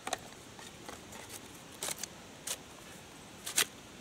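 Plastic cheese wrapper crinkling in a few short crackles as it is folded around a block of cheese, the loudest near the end.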